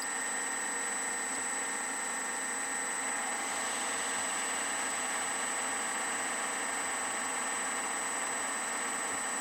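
Metalworking lathe running at a steady speed, a continuous motor hum with a steady high whine; a little more hiss comes in about three and a half seconds in.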